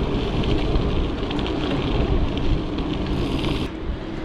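Wind rushing over the microphone and tyres rolling on pavement while riding a mountain bike, with light clicking and a brief hiss about three seconds in.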